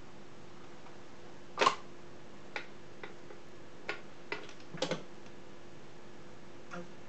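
Portable record player playing the lead-in groove of a 45 rpm single: clicks and pops, several of them recurring about once per turn of the record, over a steady amplifier hum.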